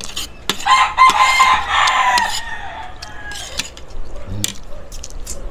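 A rooster crowing once, a long call of about two seconds starting about half a second in, with spoons clicking on plates around it.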